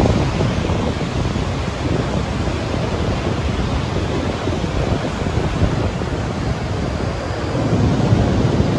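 Steady rush of sea surf and wind on a beach, with wind noise on the microphone.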